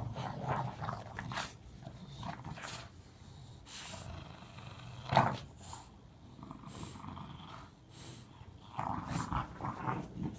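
Two English bulldogs growling in rough play, a string of irregular gruff noises that sound meaner than they are, with one sharp loud outburst about five seconds in.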